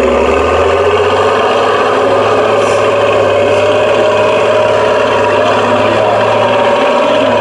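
Praga 6x6 trial truck's diesel engine working hard up a steep sandy climb, putting out dark smoke. The revs rise over the first couple of seconds, then hold steady under load.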